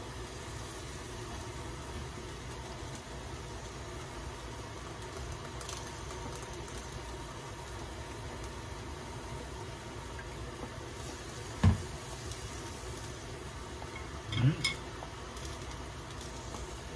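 Steady low rumble of kitchen background noise, with one sharp click, like chopsticks knocking the bowl, about twelve seconds in, and a brief low grunt from the eater a couple of seconds later.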